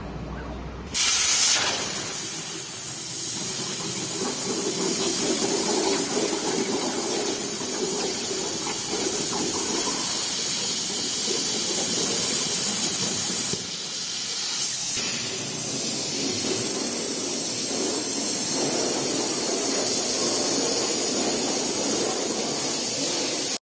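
CNC plasma cutting torch cutting steel plate: the arc starts with a sudden loud burst about a second in, then a steady loud hiss as it cuts. The hiss drops away briefly a little past halfway and comes back.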